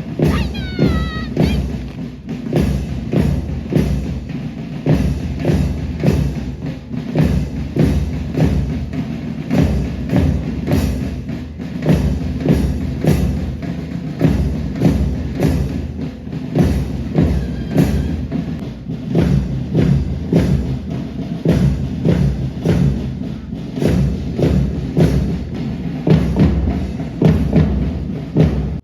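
Music with a steady, heavy drum beat, about two beats a second, that cuts off suddenly at the end.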